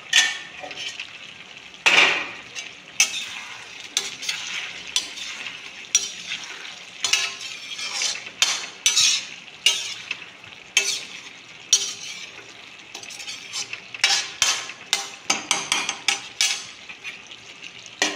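Metal spatula stirring and scraping cauliflower-and-potato sabzi (gobhi aloo) in an iron kadhai, many short scrapes and clinks over the sizzle of the food frying. There is a loud metal clank about two seconds in.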